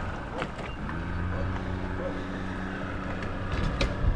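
An engine running steadily with a low hum, and a few sharp clicks or knocks over it.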